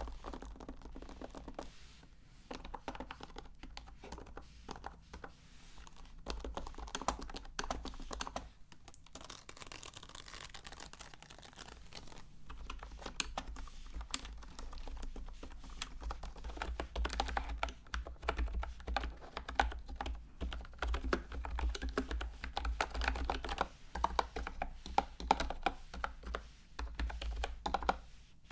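Typing on compact keyboards with round, typewriter-style keycaps: a continuous stream of quick plastic key clicks, thinning out for a few seconds near the middle.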